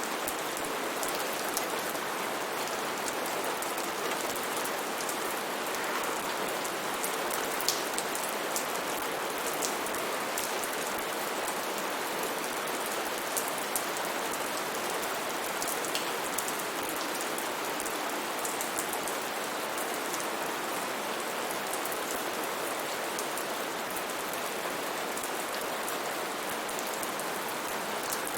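Steady rain falling, a constant hiss with many small, sharp drop impacts scattered through it.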